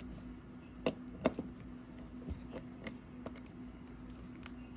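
A few faint clicks and taps as a screwdriver and fingers handle a PCIe NVMe adapter card with a metal heatsink, the two sharpest about a second in, over a low steady hum.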